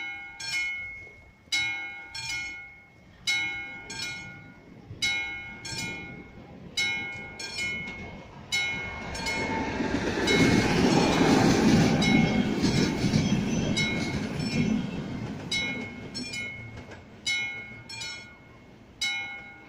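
Level-crossing warning bell of AŽD 71 signals, a classic mechanical bell, ringing in pairs of strokes about every second and a half while the crossing is closed. From about 9 to 15 seconds a passing train's rumble drowns it out, then the bell strikes a few more times and stops near the end.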